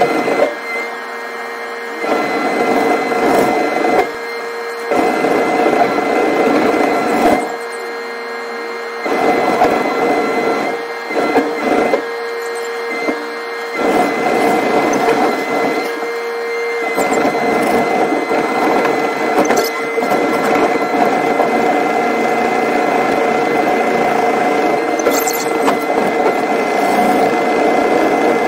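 Hydraulic whine of a rail-road excavator carrying a sleeper-laying beam, heard from inside its cab. The steady whine drops back to a quieter level and picks up again several times in the first half, then holds steady.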